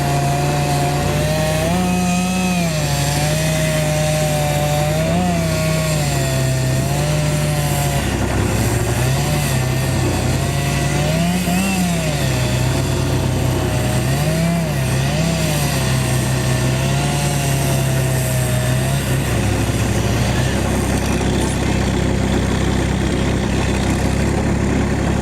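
Chainsaw running under load while cutting, its engine pitch dipping and recovering again and again, then holding steadier near the end.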